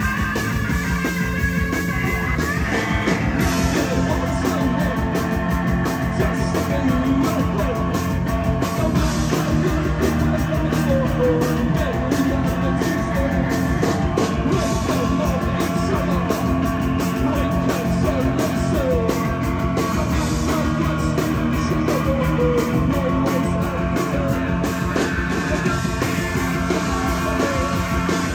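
Live rock band playing loudly: electric guitar strummed over steady, dense drumming, without a break.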